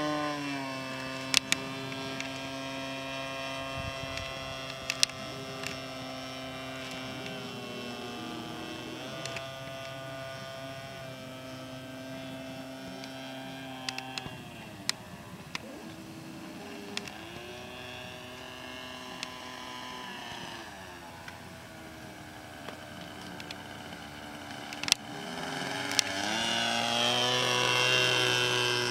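Radio-controlled Seagull Extra 300S aerobatic model plane in flight, its engine and propeller note dropping and rising several times with throttle and passes, and growing louder with a rising pitch near the end as it comes close. A few sharp clicks are scattered through.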